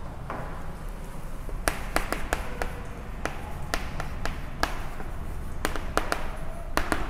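Chalk tapping and clicking against a chalkboard while a word is written: a string of sharp, irregular taps starting about two seconds in, over a low steady room hum.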